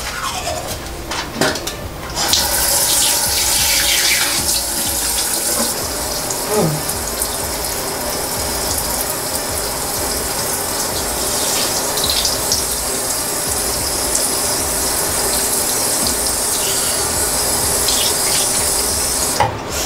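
Water running steadily from a sink tap while a face is washed under it. It starts about two seconds in and stops just before the end.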